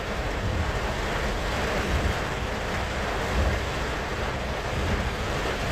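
Heavy rain and rushing floodwater: a steady even hiss over a low rumble.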